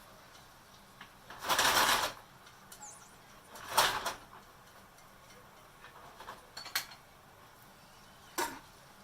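Brief handling noises: a half-second rush of noise about a second and a half in, a shorter one near four seconds, then a few sharp clicks and knocks.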